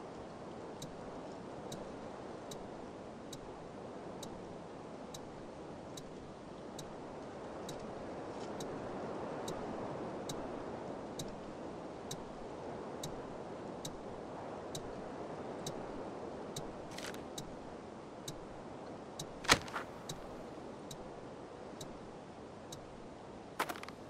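A stranded car's hazard-light indicator ticking steadily a little faster than once a second over a steady wind. A sharp, loud click comes about three quarters of the way through, and a few quick crunches come at the very end.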